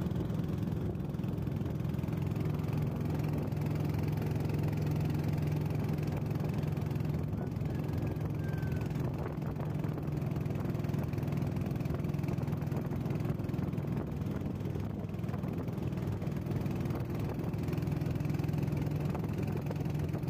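Motor boat engine running steadily at an even speed, a constant low drone with no revving or change in pace.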